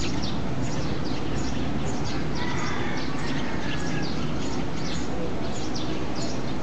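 Birds chirping: many short, high chirps repeating a few times a second over a steady low background rumble.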